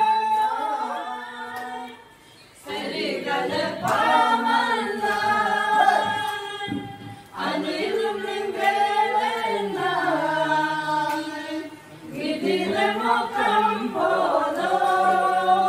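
A group of people singing together unaccompanied, in four long sung phrases with short breaks between them.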